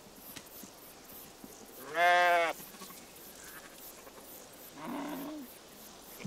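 Sheep bleating: one loud bleat about two seconds in, then a fainter, lower bleat about five seconds in.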